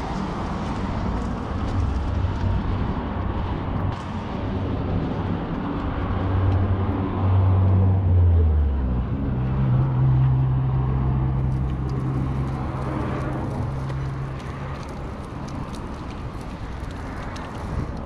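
Outdoor street sound with a motor vehicle's engine going by. Its low hum grows louder toward about eight seconds in, then steps up to a higher pitch and fades near the end.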